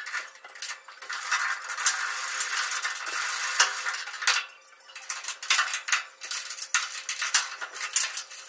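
Ratchet and socket backing out the hinge bolts on a pickup's box panel, metal on metal: a fast run of ratchet clicking for about three seconds, then separate clicks and clinks as the tool is repositioned.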